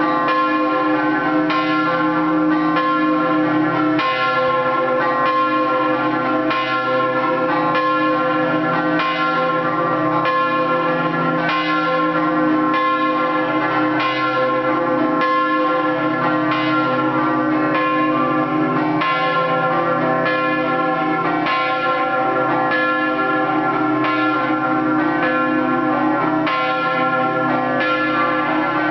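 Scampanottata on three church bells in C cast by De Poli: the bells are struck by hand in a quick, even, repeating rhythmic pattern, each strike ringing on into the next, without pause.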